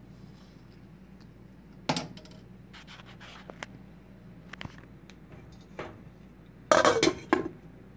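Metal ladle clinking and scraping against the soup pot: a sharp clatter about two seconds in, a few light clicks, then a louder burst of knocks and scraping near the end.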